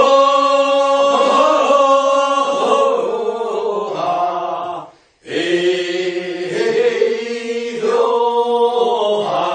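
Group of voices singing the chorus refrain of a Korean rice-paddy weeding work song (non maeneun sori) in unison, answering the lead singer. It comes as two long, held phrases with a brief break about five seconds in.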